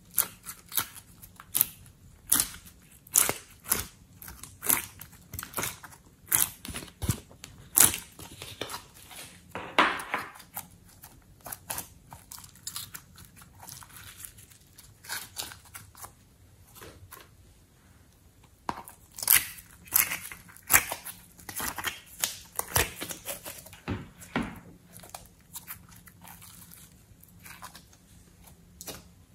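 Hands squeezing, stretching and folding soft slime, making irregular sticky clicks and crackles, with a sparser spell about halfway through.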